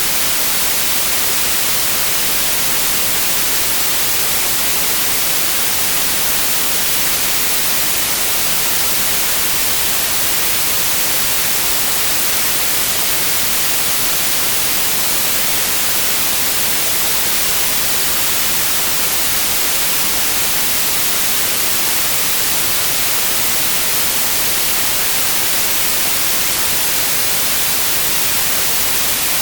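Steady, unchanging white noise: an even hiss across the whole range, strongest in the highs, with no breaks or events.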